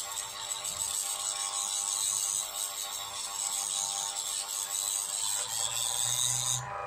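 Small electric mini drill grinding steadily into the package of an eMMC chip, cutting it away layer by layer; it stops suddenly near the end.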